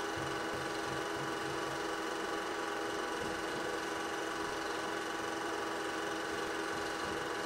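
Film projector running: a steady mechanical whir with a constant hum made up of several fixed tones, unchanging throughout.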